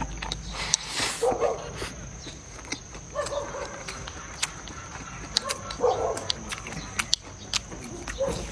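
A dog barking three times, a few seconds apart, amid short sharp clicks.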